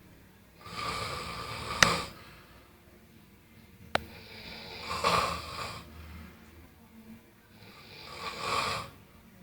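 Snoring: three rasping snores, one about every three and a half seconds, with quiet breaths between. Two sharp clicks land near the end of the first snore and about four seconds in.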